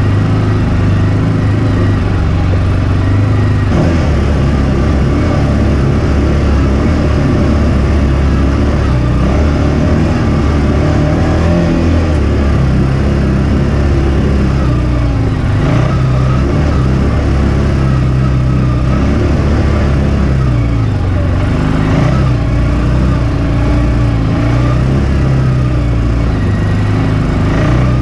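CFMOTO side-by-side's engine running steadily at low trail speed, heard from inside the cab, its pitch rising and falling a little with the throttle. A few knocks come through as it rides over rough ground.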